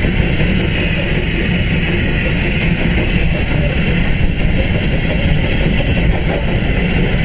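Loud, steady wind buffeting on a microphone held out of a moving train carriage's window, over the running noise of the train on the track.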